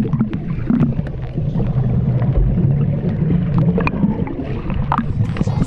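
Muffled underwater rumble of swimming-pool water picked up by a submerged camera, with scattered small clicks and pops from bubbles and swimmers' movement.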